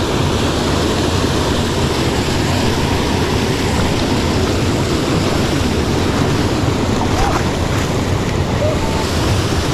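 Small waterfall rushing steadily, a continuous churning of falling water, with a few faint short chirps near the end.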